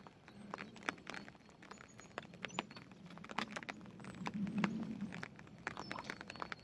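Carp feeding at the surface on floating bread: irregular wet smacking pops several times a second as their mouths suck at the water, with a longer, louder low slurp about four and a half seconds in as one takes a piece.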